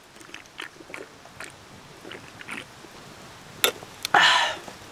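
A person drinking from a can of energy drink: soft gulps and swallows. Near the end come a couple of sharp clicks and a short, louder breathy rush as the drinking stops.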